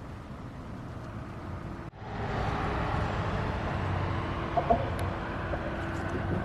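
Steady outdoor background noise, such as passing traffic or wind. It breaks off sharply about two seconds in and comes back clearly louder, with a short call about halfway through.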